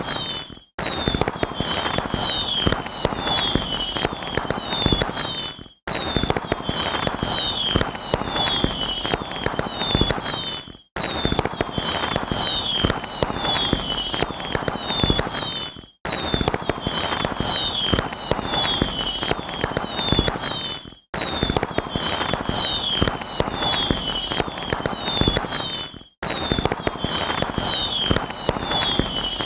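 Fireworks sound effect: dense crackling and popping with short whistles falling in pitch. A clip of about five seconds repeats over and over, each time fading out into a brief gap.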